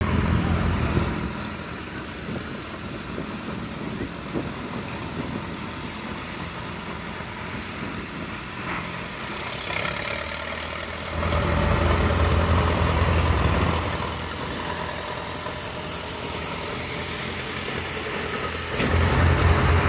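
Classic farm tractor engines, orange Allis-Chalmers among them, running at low speed as the tractors drive past one after another. The engine sound swells about eleven seconds in and again near the end as tractors pass close by.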